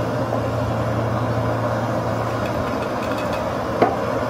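Hand coffee grinder being tapped and taken apart over a French press: a few light clicks, then one sharp clink near the end, over a steady low hum.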